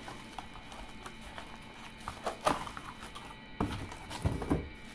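Plastic wrap crinkling and a cardboard box being handled as a plastic-wrapped stainless steel pressure cooker is lifted out. There is a sharper crackle about halfway through, then a few dull knocks near the end.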